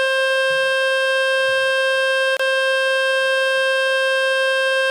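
Loud, steady, buzzy speaker-cleaning tone from the Fix My Speaker website, a single held pitch meant to shake dust and water out of a phone speaker. It breaks for an instant about halfway through.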